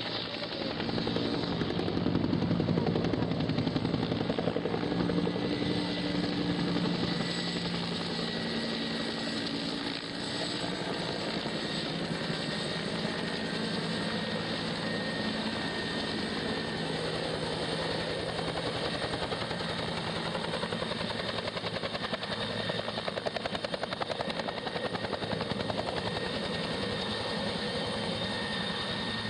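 Helicopter rotor beating steadily, with engine tones underneath. It is louder for the first several seconds, then settles a little lower.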